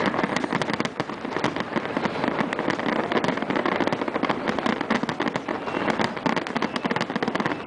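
Fireworks going off: a dense, continuous crackle of many small rapid pops and bangs.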